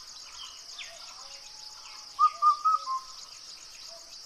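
Birds calling: a short whistled phrase of several notes that comes again about every two and a half seconds, with fainter lower notes, over a steady high pulsing trill like insects.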